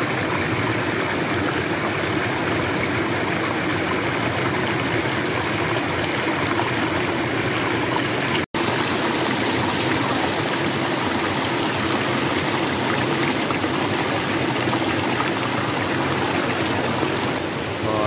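Woodland river rushing over rocks and a small waterfall: a steady, even rush of water that breaks off for an instant about halfway through.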